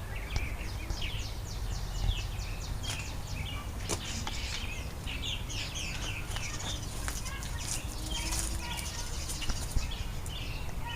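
Small birds chirping in a busy chatter of many short, rapid calls, over a steady low rumble.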